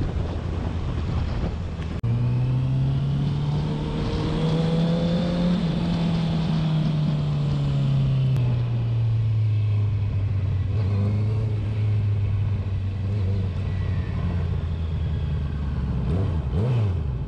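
Honda CBR650's inline-four engine and exhaust heard from the rider's position while riding in second gear: the engine note rises for a few seconds, then eases down and holds steady, with a quick drop and pick-up in revs near the end, over wind and road noise. There is a brief break about two seconds in.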